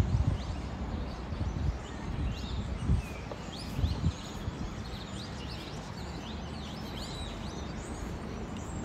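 Many small birds chirping, short high calls overlapping throughout, over a steady background noise. A few low thumps come near the start and again around three to four seconds in.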